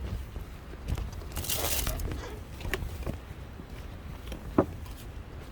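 Camping gear being handled: a crinkly rustle about one and a half seconds in, a few small clicks, then a sharp knock with a brief ring a little after four seconds, over a steady low rumble.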